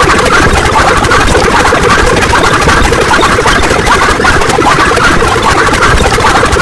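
Dense, loud wall of many sound effects layered on top of one another, merging into one steady, engine-like drone with no breaks.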